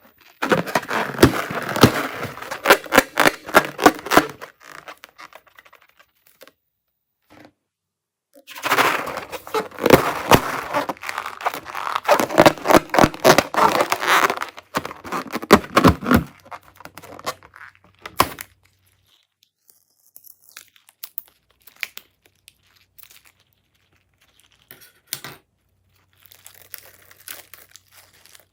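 Slime being squished and stirred, making dense runs of sticky, crackling clicks, then only scattered small pops for the last ten seconds or so.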